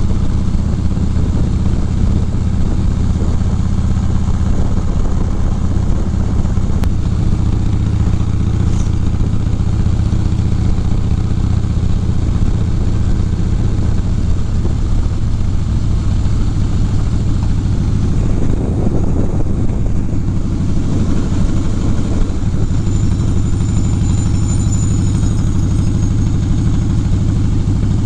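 Harley-Davidson V-twin motorcycle engine running steadily at cruising speed.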